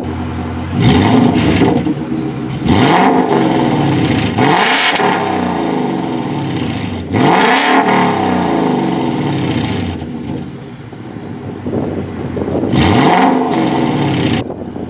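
2018 Ford Mustang GT's 5.0 Coyote V8 running on open exhaust dumps with no mufflers, revved about five times from idle to around 5,000 rpm, each rev climbing sharply and dropping back to idle. It sounds terrible.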